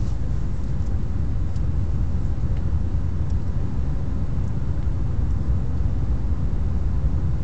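Steady low road rumble inside a moving car's cabin, with a few faint ticks.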